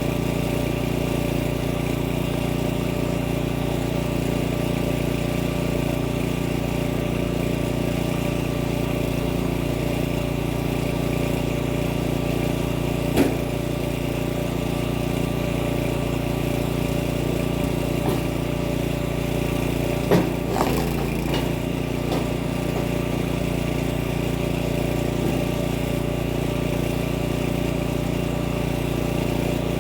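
Kinetic log splitter's small petrol engine running steadily at a constant speed, with a few sharp knocks, the loudest about 20 seconds in.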